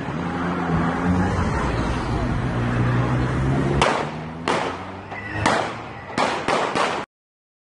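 Street traffic and voices, then six gunshots at uneven intervals over about three seconds, each a sharp crack with a short ringing tail. The sound cuts off abruptly just after the last shot.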